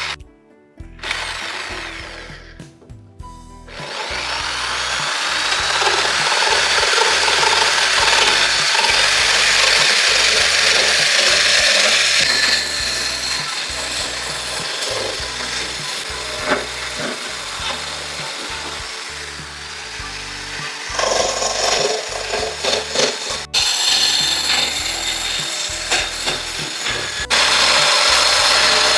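Power saw cutting through wood, running hard from about four seconds in with its sound shifting as the cut goes on, over background music with a steady low beat.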